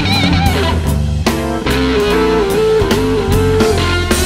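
Background rock music with electric guitar, bass and drums; a held, wavering guitar note sits over a steady bass line.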